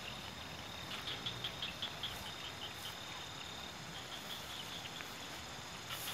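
Crickets chirping: a steady high trill with runs of short rapid chirps at the same pitch, over a faint even hiss.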